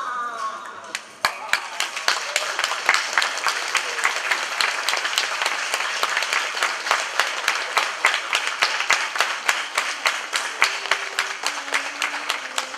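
Audience applause in a hall, beginning about a second in and carrying on steadily with many sharp individual claps.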